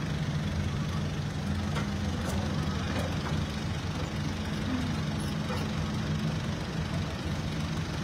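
Heavy diesel engine of a large excavator running steadily, a low even drone with no change in pitch.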